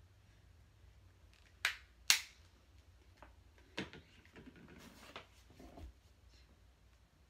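Handling noise from small objects moved about on a desk. Two sharp clicks come about two seconds in, then softer knocks and rustling.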